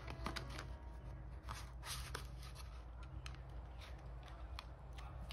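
Clear plastic cash envelopes and paper bills rustling and crinkling as they are handled and slid into a binder, with scattered soft clicks.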